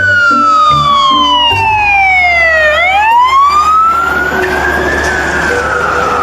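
Wailing siren, fire-engine style, its pitch sliding slowly down for nearly three seconds, then rising and starting to fall again, over a steady low rumble. Short stepped low notes of a tune sound underneath in the first second and a half.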